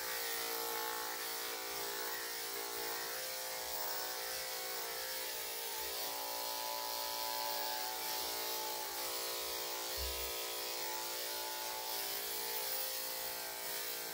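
Corded electric dog clippers running with a steady motor buzz as they are worked through a puppy's coat.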